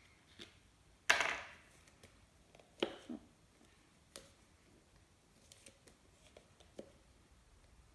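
Handling of a small plastic glitter-glue bottle: a short rasping noise about a second in, then a few sharp clicks and faint ticks.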